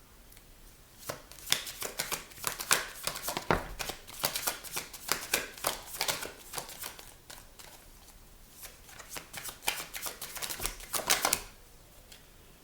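A deck of tarot cards being shuffled by hand: a run of quick papery flicks and taps, a short pause about seven seconds in, then more shuffling that stops near the end.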